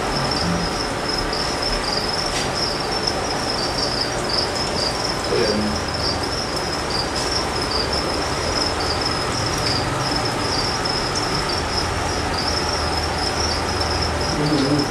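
Crickets chirping in a continuous high trill over steady background room noise.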